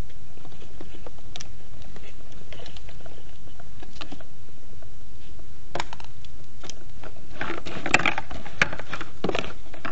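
Plastic gacha capsules and the parts of a handmade cardboard capsule-toy machine clicking and knocking as they are handled. There are a few light clicks at first, then a burst of rattling clatter about seven to nine and a half seconds in.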